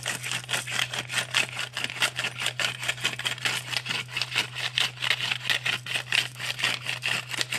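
Hand-twisted pepper mill grinding black peppercorns: a steady run of gritty clicks, several a second.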